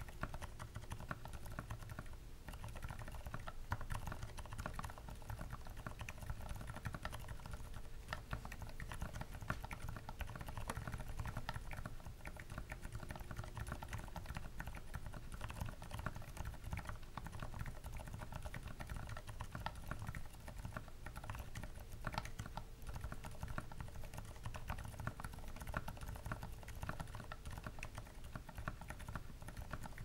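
Fast, continuous typing on a mechanical keyboard fitted with hybrid switches: Greetech lower housings, Aliaz stems, Outemu Sky tops and 78 g progressive springs, lubed on stems and tops. The keystrokes run together in a dense, even stream of clicks.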